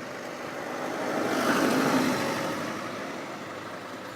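A road vehicle going past, its noise swelling to a peak about a second and a half in and then fading away.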